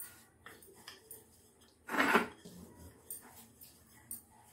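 Quiet handling of a wooden rolling pin and flatbread dough on a steel plate: a few faint clicks and one louder clatter about two seconds in.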